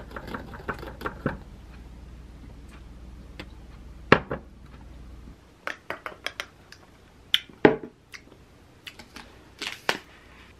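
A metal straw stirring a thick green smoothie in a tall glass, clinking against the glass several times in quick succession. Later come scattered knocks of the glass being handled on a table and the crinkling of a plastic snack packet near the end.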